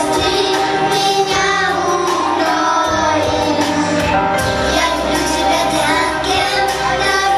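Young children singing together into microphones over an amplified music backing track.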